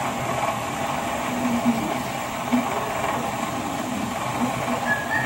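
Water pump running steadily, drawing water out of a flooded pit through its hose.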